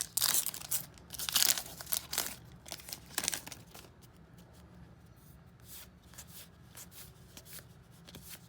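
A trading-card pack wrapper being torn open and crinkled, in several loud rips and crackles over the first three and a half seconds, then only faint rustling.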